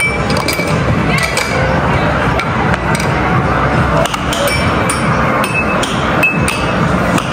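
Irregular sharp knocks and clinks, about one or two a second, some leaving a brief ringing tone, over a loud steady background noise.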